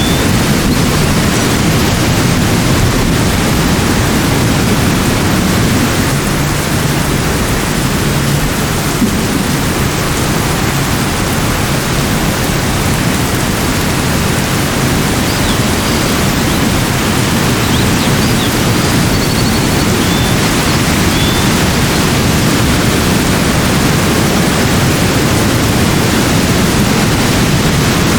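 Steady, loud rushing noise of a natural soundscape, with a few faint high chirps past the middle.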